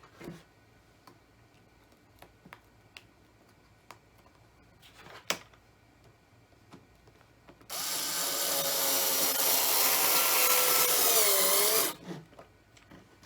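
Power drill driving a screw into wood for about four seconds, a steady whine whose pitch sags near the end as the screw seats, after some light handling clicks and a knock.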